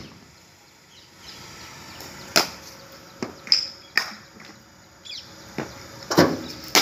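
A handful of sharp, separate knocks of cricket bats striking balls, the loudest about two and a half and four seconds in.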